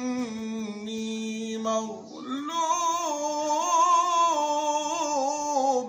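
A man's solo voice chanting Quran recitation in the drawn-out tajweed style. One long held note sinks slightly in pitch, there is a brief break about two seconds in, then a higher ornamented line waves up and down and stops at the very end.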